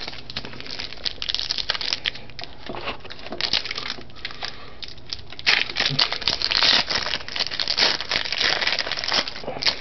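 Foil trading-card pack wrapper crinkling and tearing as it is pulled open by hand. Scattered crackles at first, then louder, denser crinkling from about halfway through.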